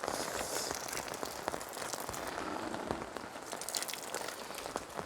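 Heavy rain falling steadily, a dense hiss with many small close drop hits scattered through it.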